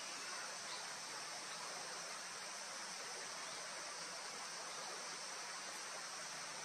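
Steady, even outdoor background hiss, strongest in the high range, with no distinct events.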